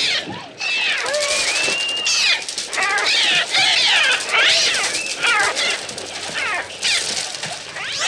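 Film soundtrack of a flock of gulls attacking, a dense overlapping chorus of shrill, rising-and-falling shrieking cries, mixed with children screaming. The gull cries are the electronically made bird sounds of the film's Mixtur-Trautonium soundtrack.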